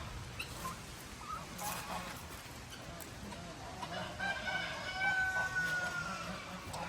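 A rooster quietly talking to food with soft low calls, then about four seconds in a long drawn-out call lasting about two seconds that falls slightly in pitch.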